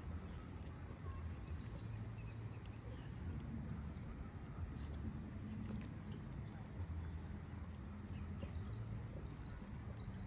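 Faint outdoor background: a steady low rumble with many brief, high, falling chirps scattered through it.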